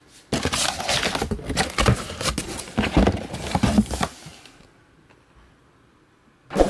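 Cardboard shipping box being opened and handled: flaps pulled back and cardboard rustling, crackling and knocking in quick irregular strokes, which stop about four and a half seconds in.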